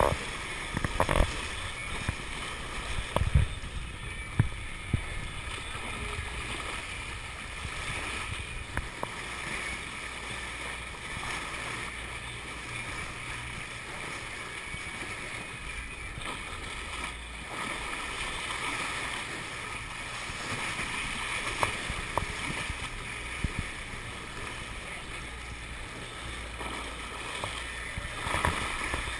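Bow wave rushing and splashing along the hull of a moving powerboat, over a steady low rumble, with a few sharp thumps early on as the bow meets waves.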